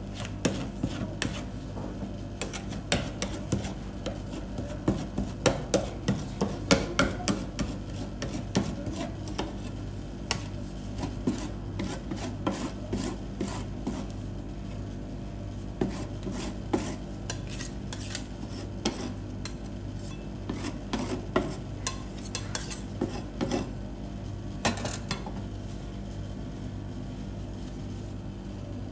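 Metal spatula scraping, tapping and clicking on the steel freezing plate of a rolled-ice-cream machine as frozen Oreo ice cream is spread and smoothed thin, with a steady low hum underneath. The scraping thins out near the end.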